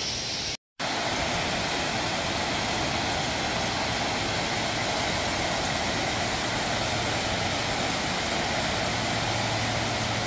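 Steady rush of water pouring over a low-head dam's spillway. The sound drops out completely for a moment about half a second in.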